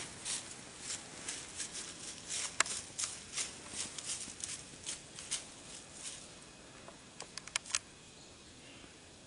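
A buck deer walking through dry fallen leaves, its hooves crunching and rustling about twice a second. The steps thin out after about six seconds into a few sharp clicks near the end.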